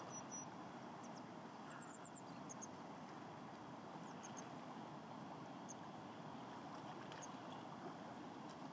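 Steady rush of water pouring over a small waterfall, with a few faint, short high-pitched chirps scattered through it.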